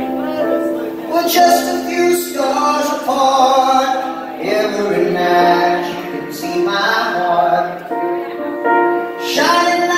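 Live music: a man singing over sustained keyboard chords that he plays himself.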